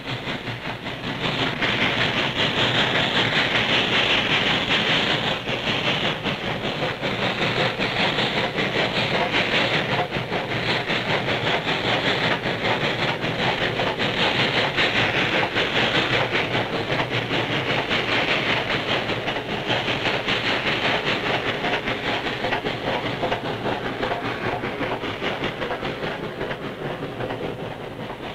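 A Norfolk & Western Y-class 2-8-8-2 articulated steam locomotive working a freight train past, with steady steam exhaust and the wheels clattering over the rail joints. It gets louder about a second in and stays steady as the freight cars roll by.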